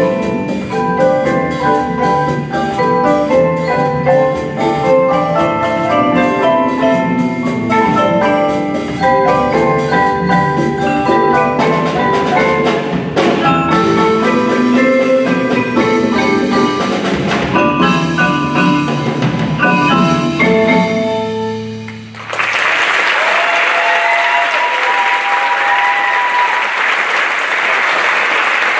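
Percussion ensemble playing fast interlocking lines on marimbas and vibraphones over drum kit and electric bass, closing on a held final chord about 22 seconds in. The audience then breaks into steady applause with a few shouts.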